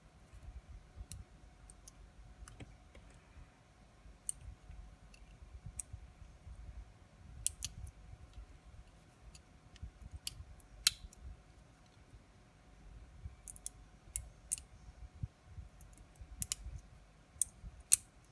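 Small, sharp, irregular clicks and taps of watchmaker's tools on a wristwatch's metal parts, with two louder clicks, one about eleven seconds in and one near the end.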